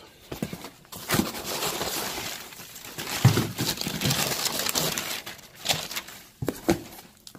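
Newspaper packing paper rustling and crinkling as a hand digs through it in a cardboard box, with a few knocks from the box and the boxed parts inside.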